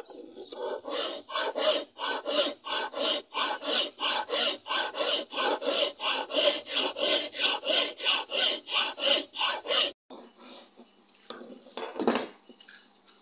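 Flat steel file rasping across a wooden hammer handle in quick, even strokes, about three a second, stopping abruptly about ten seconds in. Fainter handling noises follow, with one brief louder noise near the end.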